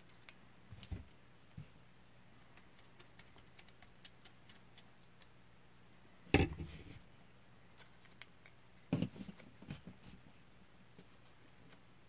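Faint clicks and taps of a brass rifle casing and a paper funnel being handled while powder is poured in. There is a sharper knock about six seconds in and a quick cluster of taps around nine seconds.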